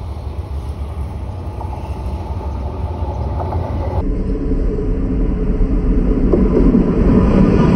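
D19E diesel-electric locomotive approaching along the track, its engine rumble growing steadily louder as it nears.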